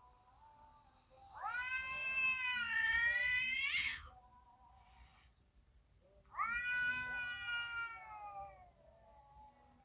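A cat meowing: two long, drawn-out meows, the first about a second in, rising in pitch toward its end, the second a couple of seconds later, falling away.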